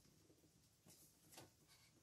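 Near silence, with faint brief rustles of a cardboard box being handled and turned over, twice.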